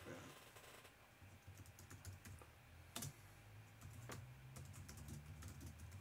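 Faint typing on a computer keyboard: a run of quick key clicks, with louder taps about three and four seconds in.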